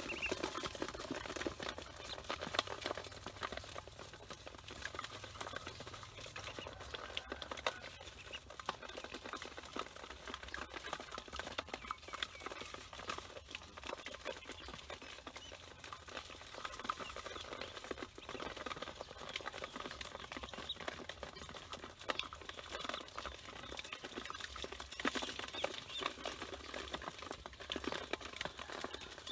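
Ducklings crowded in a bowl: a steady patter of small scratches and clicks from their feet and bills, with faint peeping.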